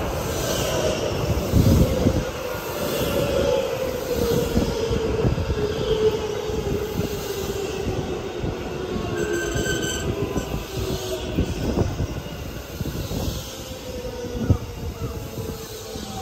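JR West electric commuter train, led by 225 series cars, pulling into the platform and slowing: a motor whine falls slowly in pitch while the wheels knock over the rail joints. A brief high-pitched squeal comes about nine seconds in.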